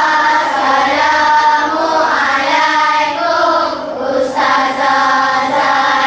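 A class of children's voices in unison, chanting a greeting to the teacher in a drawn-out sing-song, with a short break about four seconds in.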